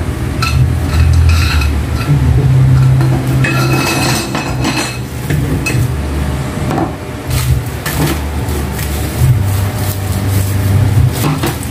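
Clicking and clattering of dish rack parts and rustling of their plastic wrapping as they are handled and sorted, over a low hum that comes and goes.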